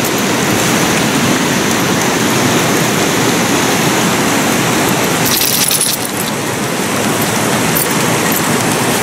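A fast-flowing mountain creek rushing in a steady, even noise, with a brief crunchy clinking about five seconds in.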